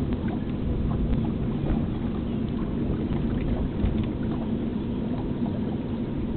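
Water splashing and lapping against the hull of a small sailboat under way, with scattered small splashes over a steady low rumble of wind on the microphone.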